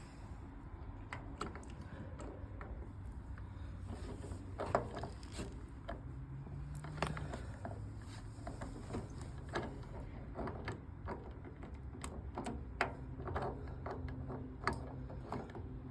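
Irregular small metal clicks and clinks of lawnmower transmission parts being handled and worked into place during reassembly, over a low steady hum.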